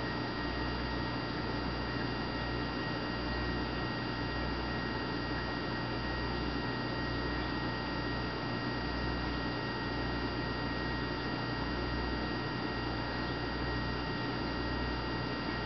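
Steady electrical hum under a constant hiss, with a few faint high-pitched whines held unchanged throughout.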